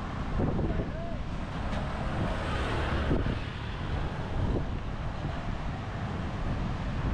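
Roadside outdoor noise: traffic passing with wind buffeting the microphone, one vehicle swelling past about three seconds in, and faint voices in the background.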